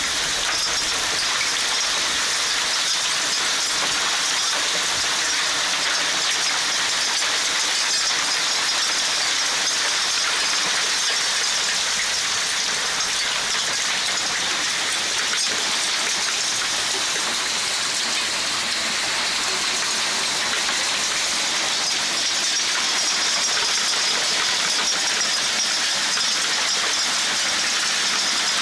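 Heavy rain with hail falling on leaves and the ground: a steady, even rush of falling water, dotted with many small sharp ticks.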